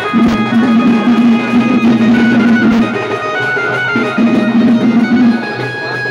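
Music with drums and a plucked-string melody over a held low note, played loudly through a cluster of horn loudspeakers mounted on a vehicle.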